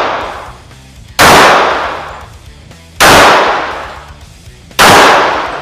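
Three unsuppressed shots from a Springfield Armory Champion Operator compact 1911 pistol in .45 ACP, fired slowly about two seconds apart. Each shot is a sharp crack that dies away over about a second.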